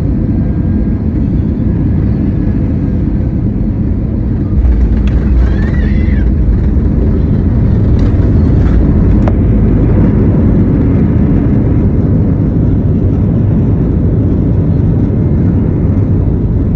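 Airliner cabin noise: a steady deep rumble of engines and airflow. About four and a half seconds in it steps up louder and deeper, and two sharp knocks follow a few seconds later.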